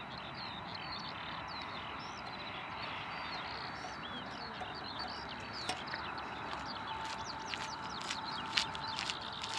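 Small wild birds chirping and twittering, many short calls over a steady outdoor background noise, with a faint steady tone coming in about seven seconds in.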